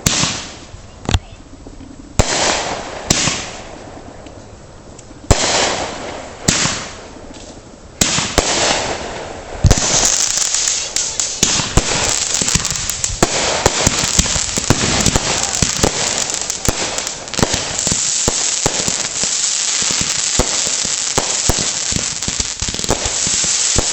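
Backyard consumer fireworks: several separate bangs, each trailing off in a crackling hiss, then from about ten seconds in a long unbroken stretch of rapid crackling and popping.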